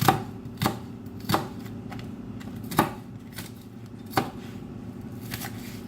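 A knife chopping a red onion: about five sharp, unevenly spaced chops against a cutting surface, over a steady low hum.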